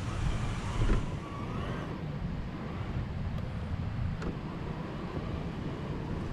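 A Traxxas TRX-4 RC crawler driving over pine needles and rocks, heard through its onboard camera: a steady low rumble of wind and handling noise on the microphone, with two knocks, about a second in and about four seconds in.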